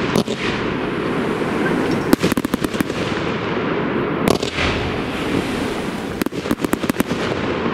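Tropic Pro BF48S2-5002 fan cake, a large F3 firework battery, firing in volleys: a rapid cluster of sharp shots about every two seconds as its mines and bouquets launch from the tubes, with a steady rushing noise of the burning effects between volleys.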